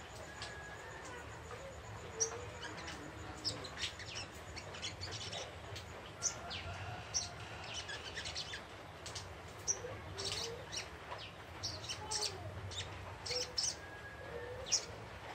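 Young wild sogon ijoan, a bird of the sunbird family, chirping: a long run of short, high, sharp chirps at an irregular pace, some in quick clusters.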